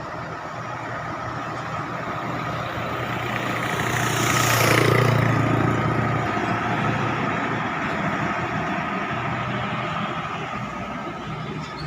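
Road traffic: engines running steadily, with a vehicle passing close that swells to its loudest about five seconds in and then fades away.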